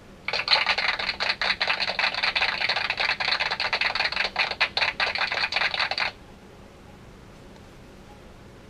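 A handheld "Sound Machine" sound-effects toy playing a crackly, hissing effect through its small speaker for about six seconds, then cutting off suddenly.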